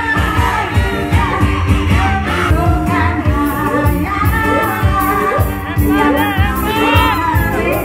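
Woman singing live into a microphone over a band, with a steady drum beat.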